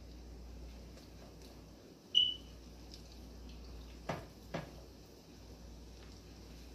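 Hand-dropped plantain puff puff batter: wet batter squelching in the bowl, with two soft splats about four seconds in, over a faint steady hiss of oil frying in the saucepan. A short high beep about two seconds in is the loudest sound.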